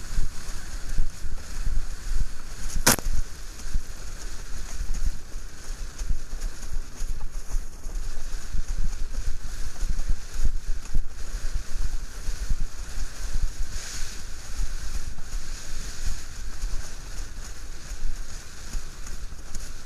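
Wind buffeting the microphone of a camera mounted on a windsurf sail, over water rushing and chopping under a slalom board planing at speed. A single sharp knock about three seconds in.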